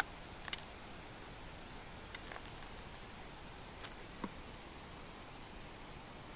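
A handful of faint, irregular clicks and taps from self-adhesive rhinestones being peeled off their backing strip and pressed onto a printed card picture, over a steady background hiss.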